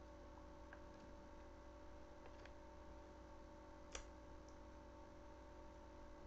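Near silence: room tone with a steady faint hum and a few soft clicks, the sharpest about four seconds in.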